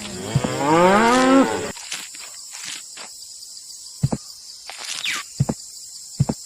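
A cow mooing once, a long call of about a second and a half that rises and then falls in pitch. A few soft low thuds follow, with a faint steady high whine underneath.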